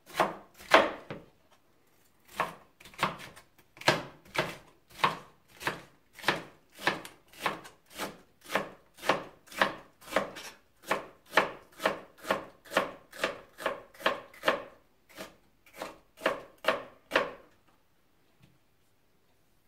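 Large chef's knife chopping red bell pepper on a plastic cutting board: a steady run of knocks, about two a second, as the blade strikes the board. There is a short pause about a second in, and the chopping stops a couple of seconds before the end.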